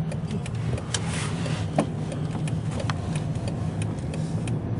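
Car interior: the low hum of the engine and road under a steady ticking of the turn-signal indicator, about two and a half ticks a second.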